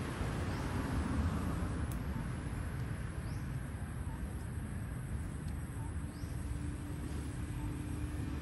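Outdoor background noise: a steady low rumble, with a faint short high chirp repeating about every three seconds.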